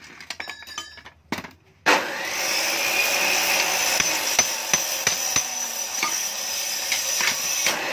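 Hammer blows and metal clinks on a steel motorcycle muffler canister as it is knocked apart. About two seconds in, a loud steady whirring hiss starts abruptly and covers the rest, with sharp knocks sounding through it.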